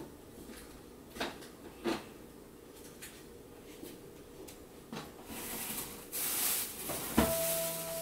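A few light taps, then a Chinese ink brush sweeping across paper, a soft swishing hiss over the last few seconds. Near the end a sharper knock is followed by a short held tone.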